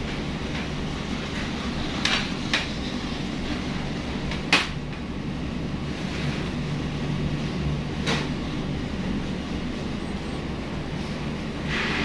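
Steady low mechanical hum with four sharp knocks or clicks. The loudest knock comes about four and a half seconds in.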